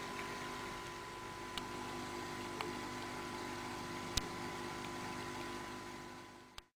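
Aquarium pump running with a steady hum and a thin high whine, with a few small clicks, the sharpest about four seconds in. It fades out and cuts to silence near the end.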